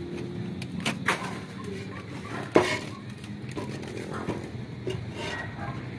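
Clay roof tiles clinking and knocking against each other as they are handled and set in place. The knocks come irregularly, with the loudest, sharpest one about two and a half seconds in.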